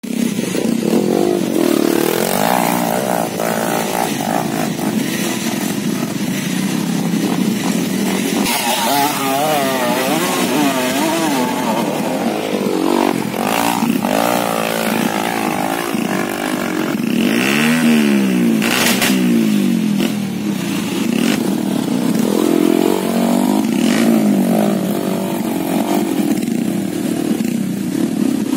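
Small trail motorcycle engines revving hard on a steep dirt hill climb. The pitch rises and falls again and again as the throttle is worked, and at times more than one engine is heard at once.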